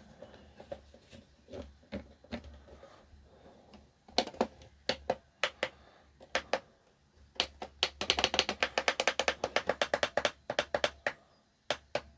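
Plastic buttons on a DAB radio being pressed: scattered single clicks, then a fast run of clicks about eight seconds in. The radio is stuck on its date setting and won't get past it.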